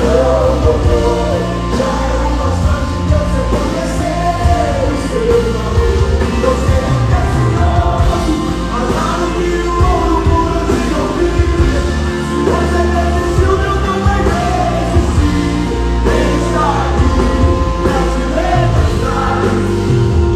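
Live band playing a gospel song with male voices singing, amplified through the hall's PA and recorded from the audience.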